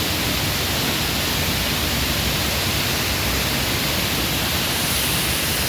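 Waterfall pouring onto large boulders: a steady, unbroken rush of falling water.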